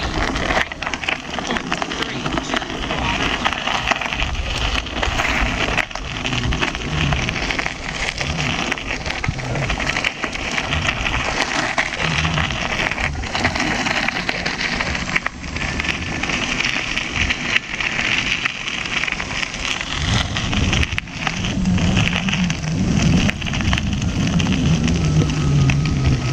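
Ninebot One E+ electric unicycle's tyre rolling over a gravel dirt path, with wind rushing over the action camera's microphone: a steady rushing noise with a low rumble and constant small crunches.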